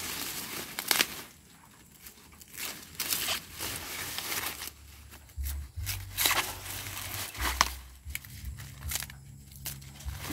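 Corn leaves and husks rustling and tearing as ears of corn are picked by hand, with a series of short, sharp snaps.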